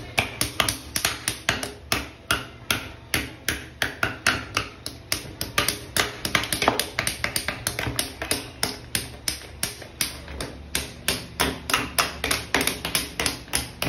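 Plastic toy hammers tapping repeatedly on a block of ice, about three sharp taps a second in a steady run.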